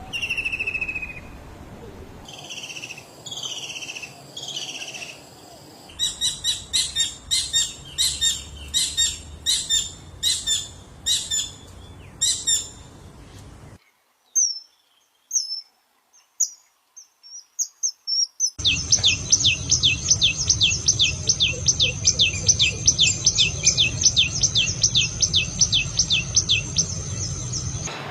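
Songbirds singing in a run of separate recordings that change abruptly: first descending whistled notes, then a series of sharp repeated calls about one and a half a second. After a nearly silent stretch with a few faint chirps, a fast, loud run of repeated high notes about three a second follows.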